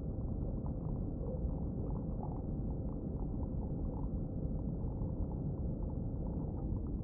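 Steady low rumble, like a vehicle running, with a few faint ticks over it.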